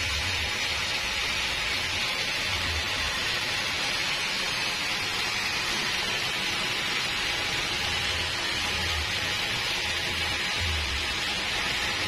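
Homemade band sawmill running, giving a steady, even whirring hiss with no change in level.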